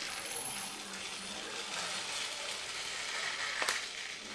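Dry basmati rice poured from a plastic bag into a glass measuring jug: a steady rush of grains, with one sharp click near the end.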